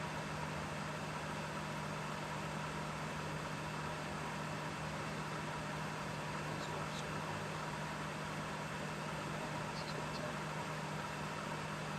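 A microwave oven running with a steady electrical hum over a fan, with a couple of faint ticks partway through.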